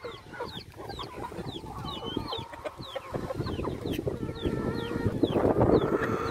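A flock of free-range chickens clucking, over many short, high, downward-sliding chirps, getting louder after about five seconds. A low rumble of wind buffets the phone microphone throughout.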